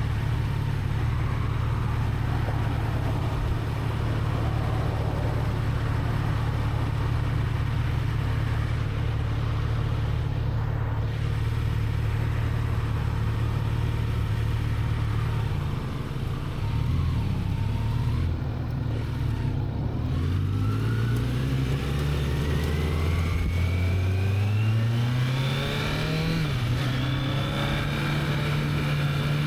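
Kawasaki Z900 inline-four engine on its stock exhaust, running at a steady note while riding. About halfway through the note drops, then rises in pitch for several seconds as the bike accelerates, and holds steady near the end.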